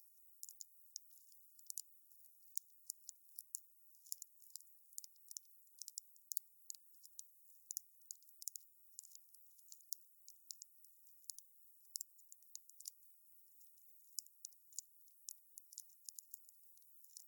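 Wood fire crackling: irregular sharp, high pops and snaps, several a second, over a faint hiss.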